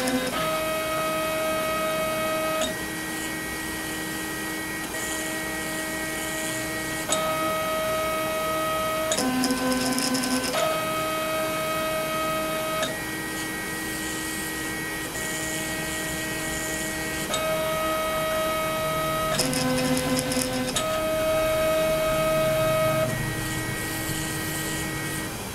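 Stepper motors driving a mini milling machine's table and rotary table through an Arduino-programmed routine of five moves, played three times over. Each move is a steady whine whose pitch jumps abruptly to a new note as one move ends and the next begins, and the same run of notes comes round about every 10 seconds.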